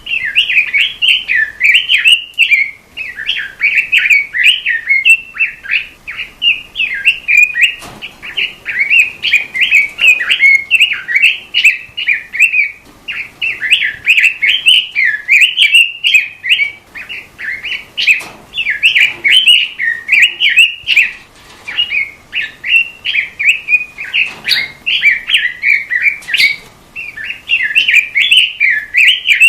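Pekin robin (red-billed leiothrix) singing a long, rapid, warbling chatter of quick twittering notes, in near-continuous phrases broken only by short pauses; the kind of robin song played as a masteran tutor recording for caged songbirds.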